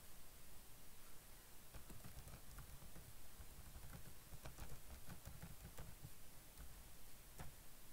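Faint, scattered clicking of a computer keyboard over a low steady background rumble.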